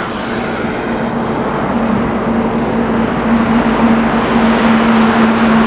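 Highway traffic: a vehicle coming along the road, its engine and tyre noise growing slowly louder, with a steady hum setting in about two seconds in.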